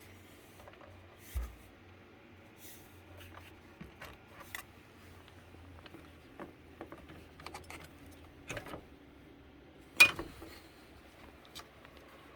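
Scattered clicks and light knocks of hands handling PC hardware while a graphics card is being swapped out, with a dull thump early on and one sharp, louder click about ten seconds in.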